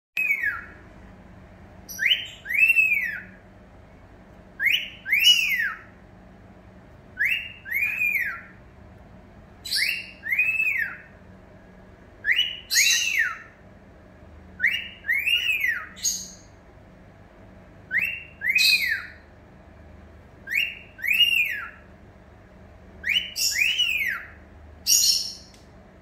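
Cockatiel whistling a wolf whistle (catcall) over and over, about every two and a half seconds: each time a short rising note followed by a longer note that rises and falls.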